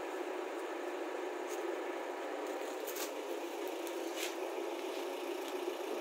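An engine running steadily at idle while diesel is pumped from a tanker truck into a tracked excavator, with a few faint clicks.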